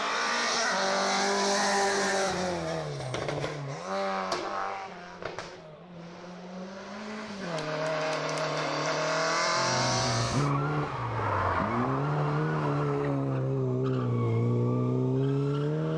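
Rally car engines revving hard through tight bends, the pitch climbing through the gears and dropping sharply on each lift-off and downshift. About ten and a half seconds in the sound changes abruptly to another car, whose engine note climbs more slowly as it pulls out of a hairpin.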